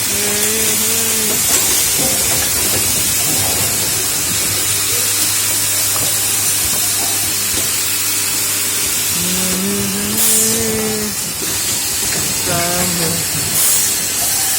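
Steady, loud hiss, with brief faint voices in the background.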